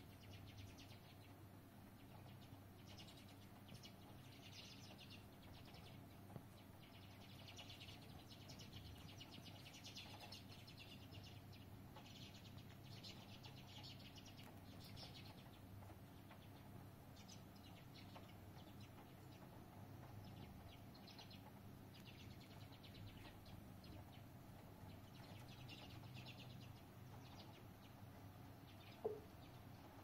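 Faint chirping of small songbirds at a feeder, in scattered runs of rapid high chirps, over a steady low hum. A single short, sharp sound near the end is the loudest thing.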